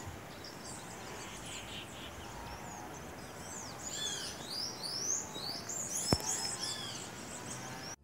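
Several birds chirping and calling over a steady outdoor hiss, the chirps busiest in the middle of the stretch. A single sharp click about six seconds in.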